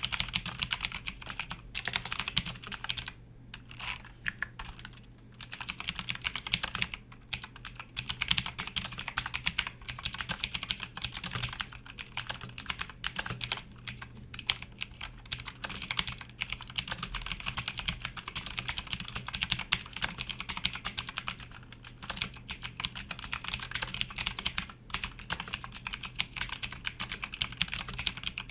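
Typing on a Motospeed CK101 mechanical keyboard with clicky Outemu Blue switches: a fast, continuous run of sharp key clicks, broken by a few short pauses.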